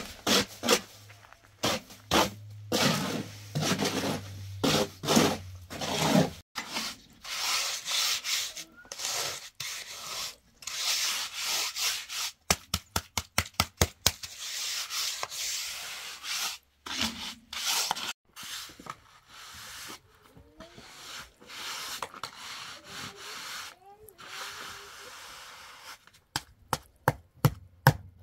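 Steel hand trowel scraping and rubbing over wet cement in repeated uneven strokes as the surface is smoothed, with runs of short sharp taps about halfway through and again near the end.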